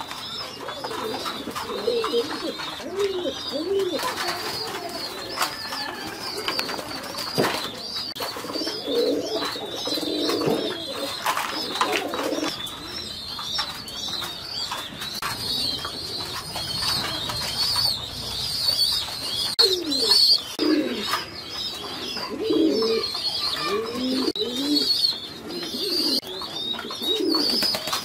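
Several caged fancy pigeons cooing in repeated low phrases that come in bouts, over a constant high twittering of small birds chirping.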